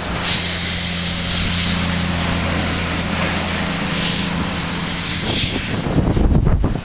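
Steam locomotive hissing, with repeated swells of steam over a steady low hum that fades out partway through. Wind buffets the microphone near the end.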